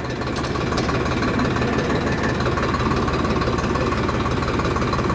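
Farmtrac 60 PowerMaxx tractor's three-cylinder 3510 cc diesel engine running steadily, getting slightly louder about a second in.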